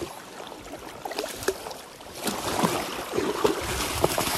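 Flowing river water with splashing, growing louder and more broken about two seconds in.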